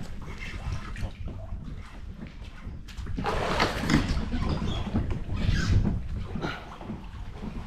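Choppy water sloshing and lapping against a kayak hull and bridge pilings, over a steady low rumble. Louder splashy rushes come about three seconds in and again near six seconds.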